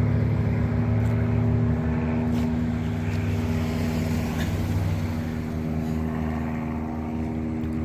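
A car engine running steadily at a constant, low speed.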